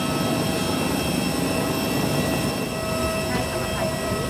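Steady whine and rush of a parked jet airliner, several high tones held over a broad roar.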